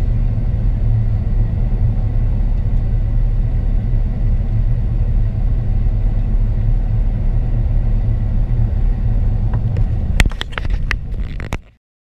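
Airbus A380 cabin noise over the wing during the climb: a steady low rumble from the Engine Alliance GP7200 engines at climb power and the airflow. About ten seconds in there are a few sharp clicks and knocks, and then the sound cuts off.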